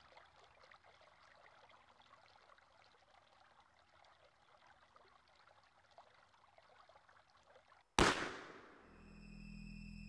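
A faint crackly hiss, then about eight seconds in a signal flare is fired: a sudden loud burst that dies away over about a second. Low held music tones follow near the end.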